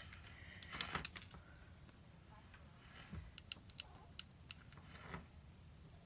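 Light clicks and taps from handling a mini hot glue gun over a tabletop: a quick cluster about a second in, then scattered faint ticks and a small knock near the end.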